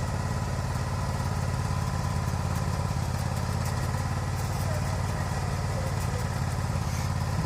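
Sawmill engine running steadily at an even pitch.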